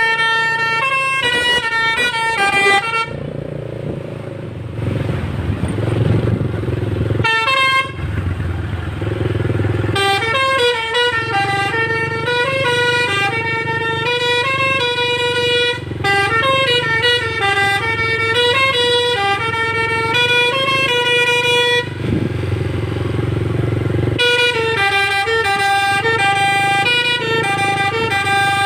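A bus's 'telolet basuri' multi-note horn playing a melody in quick steps from note to note over the engine's running. It breaks off twice, around three seconds in and again about twenty-two seconds in, leaving just the engine, then starts up again.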